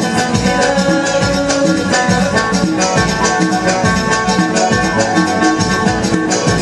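Live Moroccan ourkestra band music: a banjo playing the melody over keyboard and fast, driving percussion with a shaker-like rattle on the beat.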